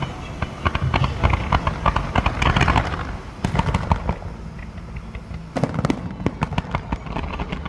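Fireworks going off in dense rapid crackling, many sharp pops close together, in three bursts with short lulls between them.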